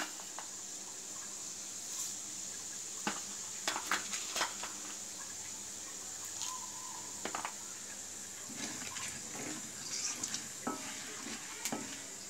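Hot oil sizzling steadily in a metal kadai as spices fry for a tempering, with scattered sharp pops and clicks, several in quick succession a few seconds in and again near the end, as more ingredients are spooned in and stirred with a wooden spatula.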